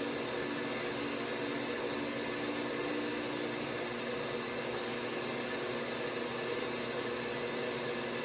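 LG WT5680HVA direct-drive top-load washing machine running through its cycle: a steady, even hum with a faint constant tone.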